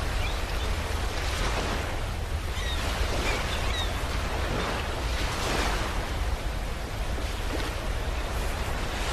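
Black Sea waves washing onto the shore, the surf swelling and easing every two seconds or so over a steady low rumble.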